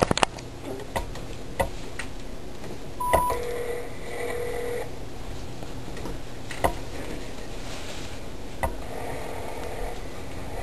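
Telephone line of an outgoing call: scattered clicks on the line and a short beep, then the ringing tone sounds twice, a few seconds apart, while the call waits to be answered.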